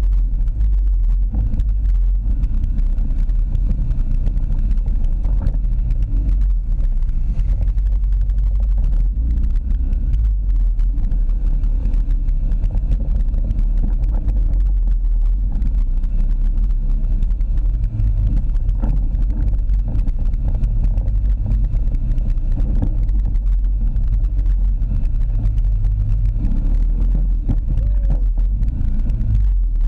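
ATV engine running steadily while riding, a low rumble picked up by a camera mounted on the ATV itself.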